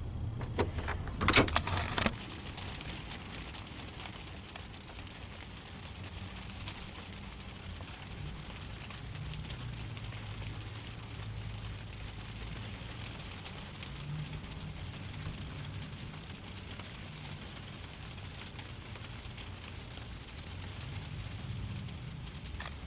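Items clattering and knocking as they are handled for about the first two seconds, then a steady low hiss with a faint low hum underneath.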